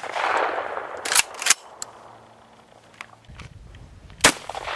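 Benelli Nova pump-action 12-gauge shotgun firing 2¾-inch small game loads. The echo of a shot fades at the start, two sharp clacks of the pump being worked come just over a second in, and a second gunshot near the end is followed by its echo.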